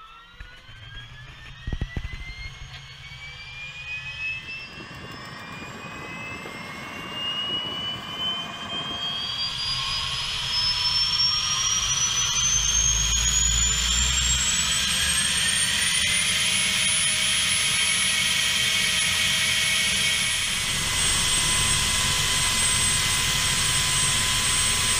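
Solar T62 turbine of a Syton AH130 ultralight helicopter starting up. Its whine climbs steadily in pitch and grows louder for about sixteen seconds, then holds as a steady high whine over a rushing roar. A few sharp clicks come about two seconds in.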